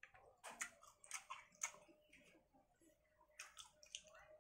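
Close-up chewing of a hand-fed mouthful of fried fish and rice: quiet, sharp mouth clicks and smacks in clusters, heaviest in the first two seconds and again about three and a half seconds in.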